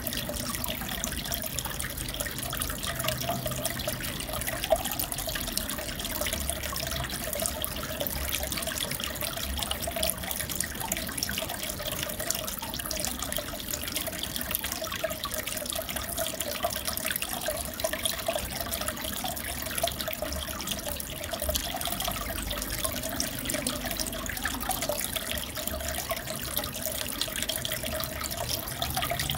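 Aquarium water trickling and bubbling steadily, as from a filter outflow, with fine crackle and no change throughout.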